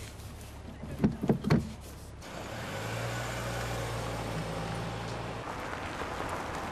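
Car driving on the road: three short loud bursts about a second in, then a steady engine hum with tyre and road noise. The engine hum drops away near the end while the road noise goes on.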